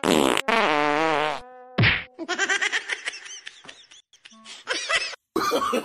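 Buzzy, wavering growls and whines from a small dog and a cat play-fighting, with a sharp burst at the start and a short one about two seconds in.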